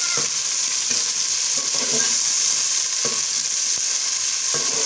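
Potato chunks frying in oil with browned onions in an aluminium pot: a steady, dense sizzle, with a few strokes of a metal slotted spatula stirring through the pot.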